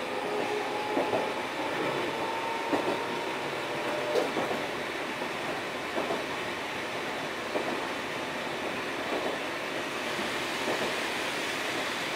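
Eizan Electric Railway Deo 700 series car 721 running along the line with a steady rolling rumble. Its wheels knock sharply over rail joints at uneven intervals, every one to two seconds.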